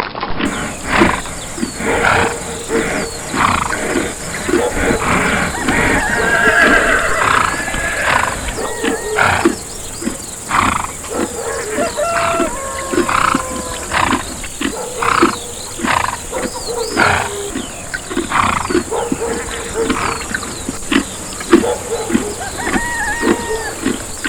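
Horses neighing: a whinny with a wavering pitch about six seconds in, and shorter calls later, amid many short, sharp sounds throughout.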